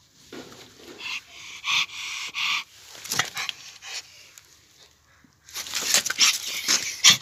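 A dog panting and whining in short breathy bursts while a gloved hand grips it by the back: a run of three bursts about a second in, and a louder cluster near the end.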